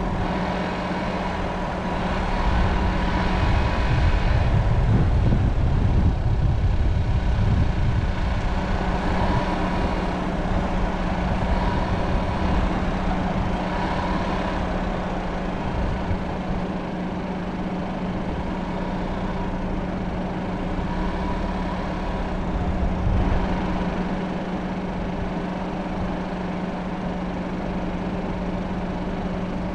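A vehicle engine running at a steady, even pitch while driving slowly along a dirt track. A deeper low rumble swells for several seconds about two seconds in.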